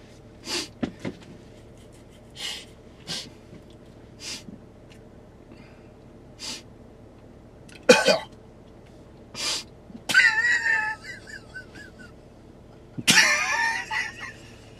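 Men's short breathy snorts and sniffs, repeated every second or so, then two bursts of high-pitched laughter near the end.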